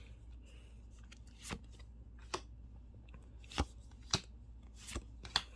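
Trading cards handled by hand as a pack is flipped through: about six short, crisp card flicks and snaps, a second or so apart.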